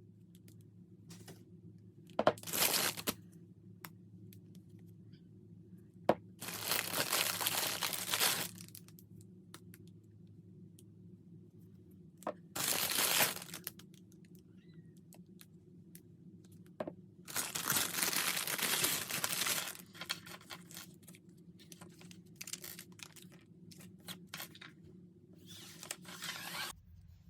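Packaging being torn and crinkled by hand: four bursts of tearing of one to two seconds each, with lighter crackling in between.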